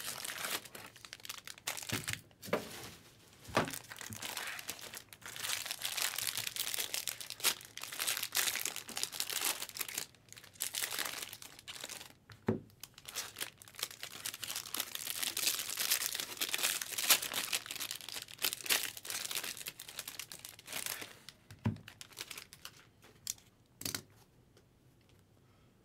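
Foil trading-card pack wrappers being crinkled and torn open by hand, in irregular rustling bursts, with a few soft knocks as the cards and packs are handled. It quietens over the last few seconds.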